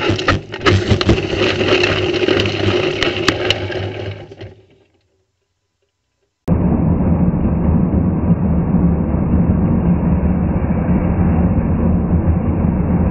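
Onboard sound of an open-wheel race car sliding off the track with its engine stopped: a rough rushing noise with a string of sharp clicks and knocks, fading out about four and a half seconds in. After a short silence, a steady low rumble of a car driving on a road, heard from inside the car through a dash cam.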